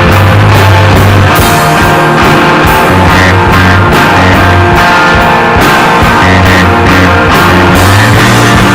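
Rock band of two guitars and drums playing a loud psychedelic rock passage, with sustained low guitar notes over a steady drum beat.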